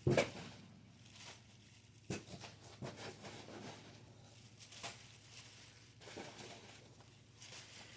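Packaging being handled by hand: scattered rustling and tearing with light clicks and knocks as small white packing pieces are pulled off, with a sharper knock right at the start.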